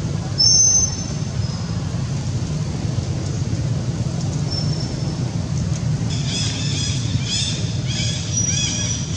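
A steady low rumble with a few thin high whistles. From about six seconds in, a quick series of short, high-pitched chirping animal calls, several a second.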